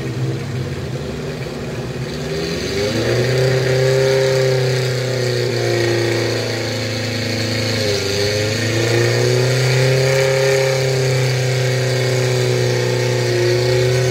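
Suzuki Jimny off-roader's engine revving hard under load as it pushes through deep muddy water. The pitch rises about three seconds in and holds high, dips briefly near eight seconds, then climbs again.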